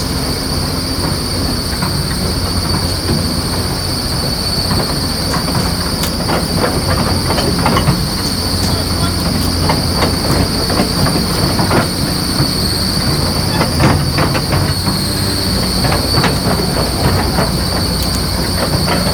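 Caterpillar 330C hydraulic excavator running: a steady diesel engine rumble under a high-pitched whine, with repeated metallic clanks and squeaks, most of them in the middle of the stretch.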